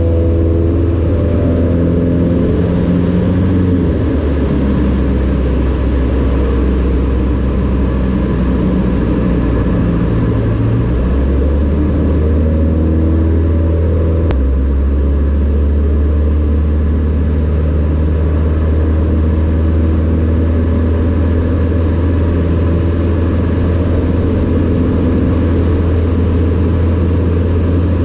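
Cessna 152 Aerobat's four-cylinder Lycoming O-235 engine and propeller droning loudly, heard from inside the cockpit. The engine note steps up and down a few times as power and airspeed change through the aerobatic manoeuvres.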